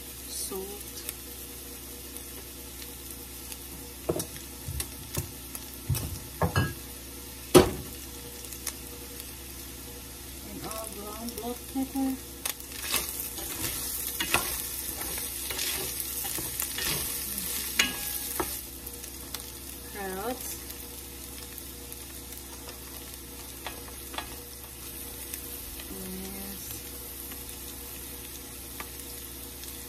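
Pork, onion and garlic sizzling in a steel skillet while a nylon spatula stirs and scrapes through it. Several sharp knocks of the spatula on the pan come about four to eight seconds in, and the sizzle and scraping are busiest in the middle.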